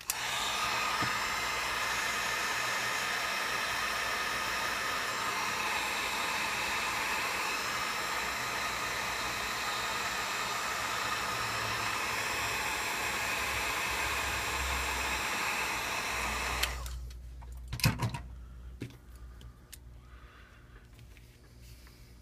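Hot-air blower running steadily to soften the adhesive under a phone's flex cable, then switched off about three-quarters of the way through. A couple of sharp knocks follow.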